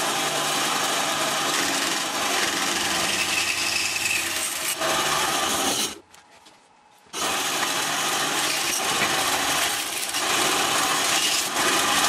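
Benchtop bandsaw cutting through the welded plastic case of a battery pack, with a steady motor hum under the noise of the cut. The sound drops out for about a second some six seconds in, then the cutting resumes.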